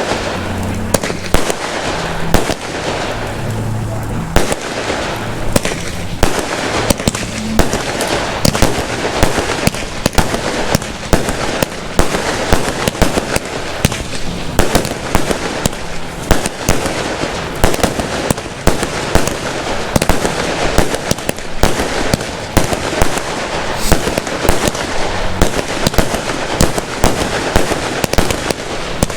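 Fireworks display going off: a dense, continuous run of sharp bangs and crackles, several a second.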